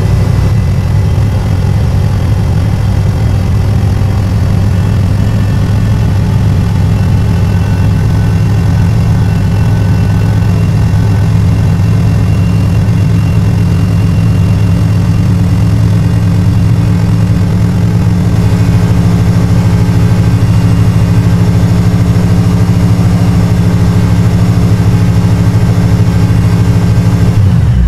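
1984 Camaro Z28's carbureted 5.0 L H.O. V8 idling steadily, sped up fourfold for much of the stretch, then at normal speed. It cuts out at the very end: it stalls on its own, the fault being chased on this car.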